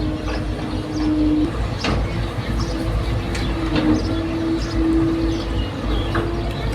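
Excavator's diesel engine and hydraulics running, a low rumble under a steady whine that shifts slightly in pitch a couple of times as the load changes. Small birds chirp faintly now and then.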